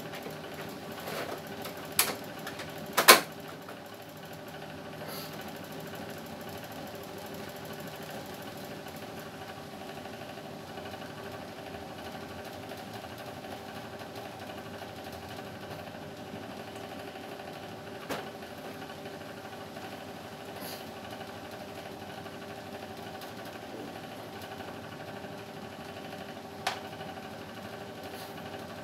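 Split-type air conditioner indoor unit running with a steady hum. Plastic clicks and snaps as the air filter and front panel are pushed back into place, two sharp ones about two and three seconds in, the second the loudest, and two more single clicks later on.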